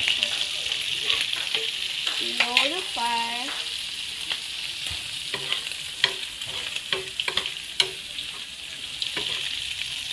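Butter garlic shrimp sizzling in a small non-stick frying pan, with a spoon clicking and scraping against the pan as it is stirred. The clicks come several times in the second half.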